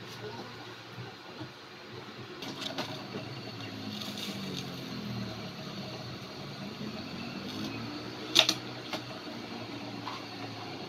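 Miniature butane camping stove burning steadily under a small steel pot of water at the boil. A low droning sound swells and fades through the middle, and a sharp click sounds about eight seconds in.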